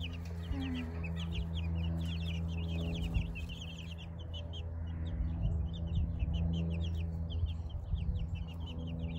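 Baby Silkie and naked-neck chicks peeping nonstop: a rapid run of short, high, downward-sliding peeps from several chicks at once, over a steady low hum.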